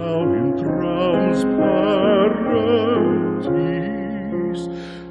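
Slow background music: piano chords under a sustained melody with vibrato.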